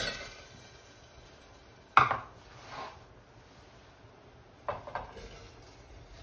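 Frozen berries and then cherries tipped from bowls into a stainless steel saucepan, clattering against the metal in short bursts, with a sharp knock about two seconds in.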